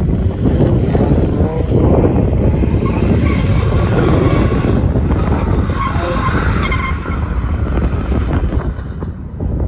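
Tuned Infiniti G35 coupe's V6 engine revving up and down as the car drifts on wet pavement, with tyres skidding.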